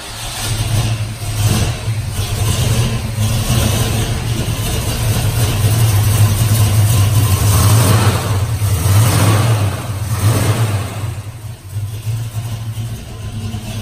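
V8 engine of a 1972 Dodge Challenger running just after a cold start. Its revs rise a few times through the middle, then it settles to a steadier, quieter idle near the end.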